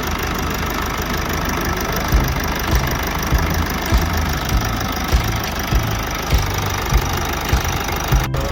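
Common-rail diesel engine of a 2010 Jeep Wrangler JK running steadily with a diesel knock, a regular low thump coming a little under twice a second.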